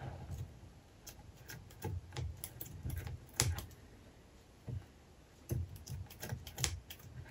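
Metal scissors snipping through fabric in short, irregular cuts. There is a run of snips from about a second in, a brief pause, and a second run near the end.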